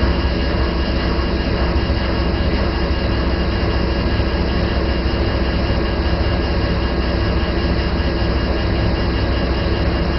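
Washing machine running: a loud, steady mechanical rumble with a constant hum.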